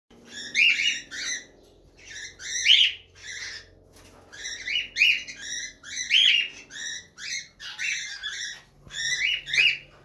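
Cockatiels calling while mating: a string of short, high-pitched calls in quick clusters of two or three, with a brief pause about four seconds in.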